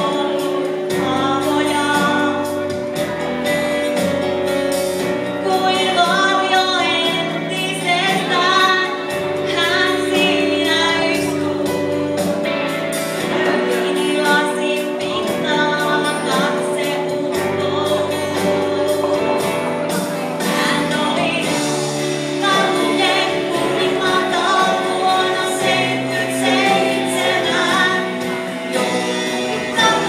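A woman singing into a handheld microphone over a karaoke backing track, holding some notes with vibrato.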